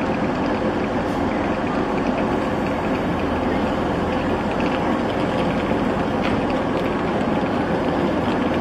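Hitachi Class 801 electric train at the platform, giving a steady running hum of its traction and onboard equipment with a faint held tone.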